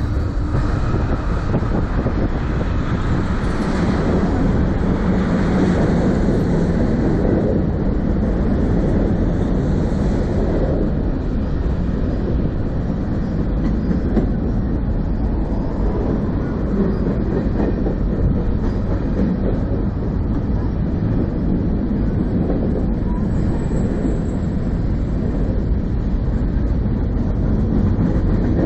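Freight cars of a Canadian National manifest train rolling past: a steady rumble of steel wheels on the rails.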